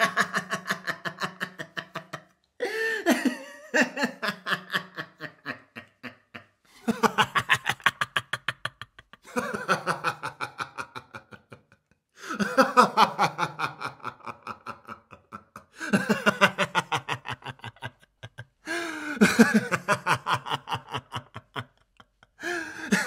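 A man laughing in about eight separate bouts, each a couple of seconds of rapid pulses that fall in pitch and fade away, with short silent gaps between them.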